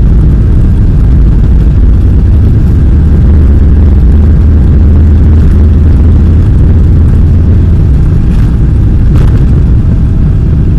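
Jet airliner's engines at takeoff power during the takeoff roll, heard inside the cabin from a window seat: a loud, steady low rumble, with two faint knocks about a second apart near the end.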